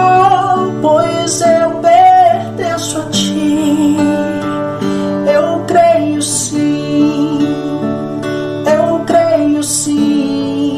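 Slow gospel worship song music carried by strummed acoustic guitar, with sustained chords.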